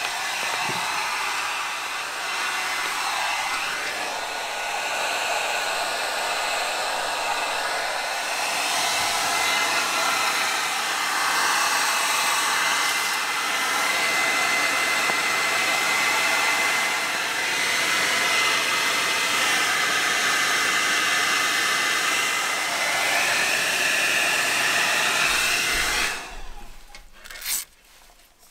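Corded handheld hot-air dryer blowing on a pair of work gloves to dry them: a steady rushing airflow with a faint thin whine, shifting a little as it is moved over the gloves. It is switched off near the end, followed by a couple of light knocks.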